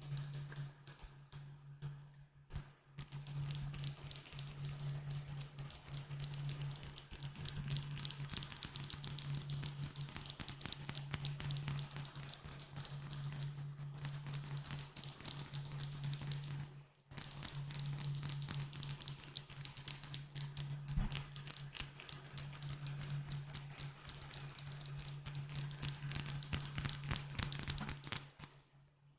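Rapid tapping on glass bottles, a dense run of quick light clicks that breaks off briefly a few times, over a steady low hum.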